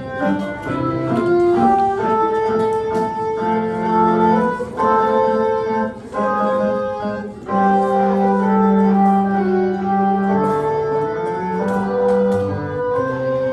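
Music played on an organ-like keyboard: a melody of held notes over sustained bass notes.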